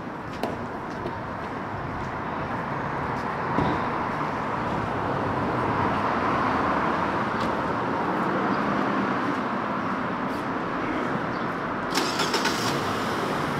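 A road vehicle driving by on the street, its engine and tyre noise growing louder over several seconds and then holding steady. A single knock comes a few seconds in, and a short clatter sounds near the end.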